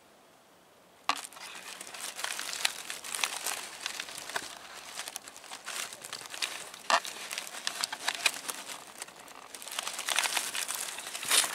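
A close crinkling, crackling rustle that starts suddenly about a second in and keeps on, dense and uneven, with a few sharper cracks.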